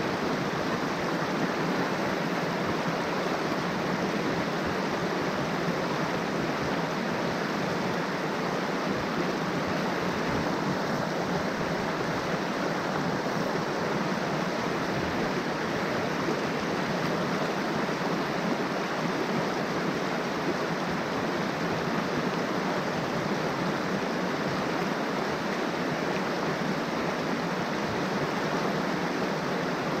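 Mountain stream rushing: a steady, even hiss of flowing water that does not change.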